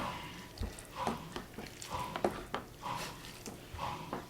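Metal fork stirring instant ramen noodles in water, with soft wet scrapes and light clinks repeating about twice a second.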